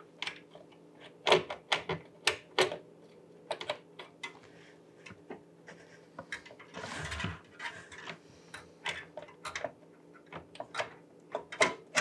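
Irregular clicks, taps and knocks of a metal PCIe expansion card and its bracket against the PC case as it is worked into the slot, with a longer rustling scrape about seven seconds in.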